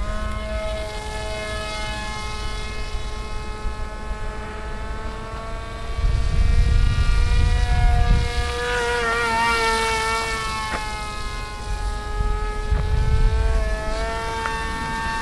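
RC model plane's motor and propeller whining overhead, several tones at once. The pitch wavers and shifts around the middle as the plane passes. A low rumble comes twice, about six seconds in and near the end.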